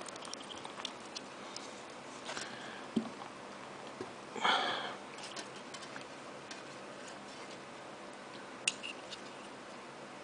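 Faint handling of a plastic PC case fan: scattered small clicks and ticks as rubber mounts are pulled through its corner holes. A short rubbing scrape comes about four and a half seconds in, with sharper clicks near three seconds and near the end.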